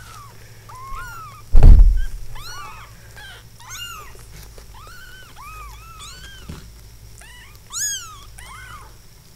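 Two-week-old Ragamuffin kittens mewing over and over: short, high calls that rise and fall, several kittens overlapping. A loud low thump about one and a half seconds in, and one louder, shriller mew near the end.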